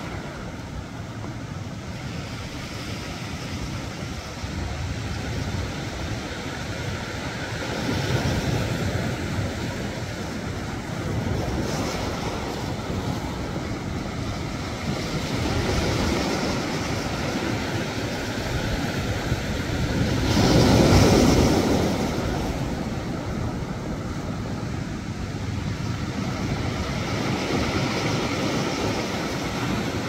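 Sea waves breaking and washing over shoreline rocks, a steady surf that swells and eases every few seconds, with one bigger wave a little past two-thirds of the way through.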